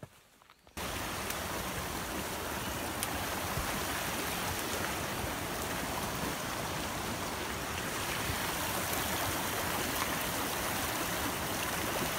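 Small mountain stream running steadily over a rocky bed and a fallen log. It starts abruptly about a second in.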